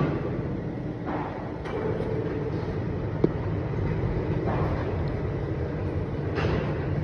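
Excavator engine and hydraulics running steadily, with several short noisy bursts and a single sharp click about three seconds in.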